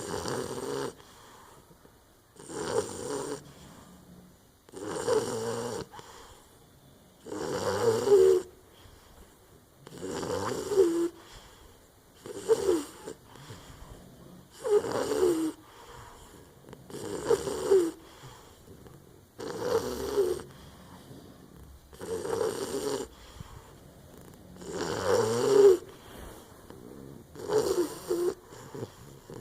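English bulldog puppy snoring in her sleep. There is one snore about every two and a half seconds, each lasting about a second, with a steady breathing rhythm.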